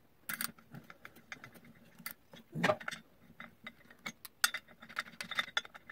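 Light, irregular metallic clicks and clinks of a socket and extension on the primary clutch's retention bolt as the bolt is turned out of the crankshaft.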